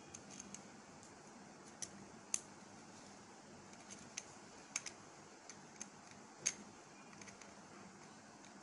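Faint, scattered small clicks and taps as a plastic inline bed switch and its wires are handled and fitted. The sharpest click comes about two and a half seconds in, and another just past six seconds.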